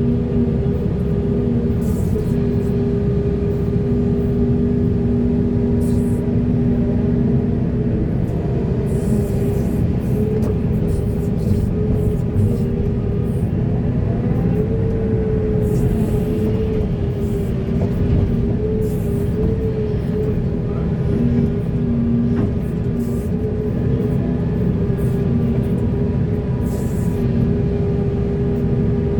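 Heavy earthmoving machinery's diesel engine running steadily under load, with a steady whine over the engine noise that wavers a little in pitch near the middle.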